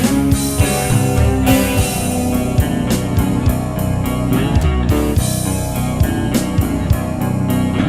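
Rock music soundtrack with guitar and a steady drum beat.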